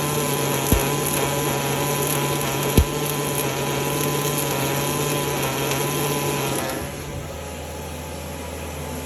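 Welding arc crackling steadily on a diesel torque converter, with two sharp knocks, then stopping about seven seconds in and leaving a lower hum.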